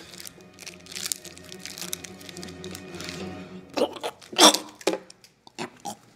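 Soft background music with steady held notes, then from about four seconds in a boy making a few loud, short choking sounds, put on to fake an allergic reaction.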